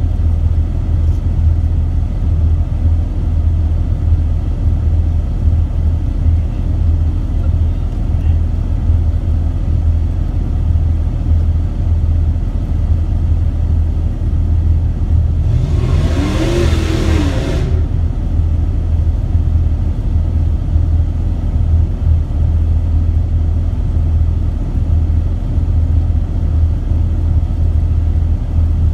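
Jeep engine running at a low, steady pitch as the Jeep crawls up a steep rock climb. A little past halfway it revs up and back down in one short burst of about two seconds.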